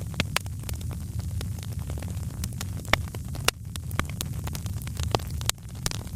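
Fireplace fire crackling: frequent sharp pops and snaps over a steady low rumble of the flames, with one louder pop about three seconds in.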